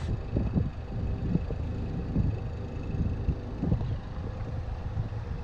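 Steady low hum of a catamaran's engine under way, with wind gusting and buffeting over the microphone.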